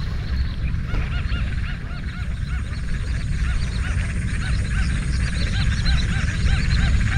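A dense chorus of many animals giving short calls over and over, overlapping one another, over a steady low rumble.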